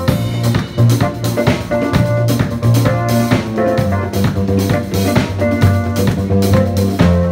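Background music with drums keeping a steady beat over a sustained bass line.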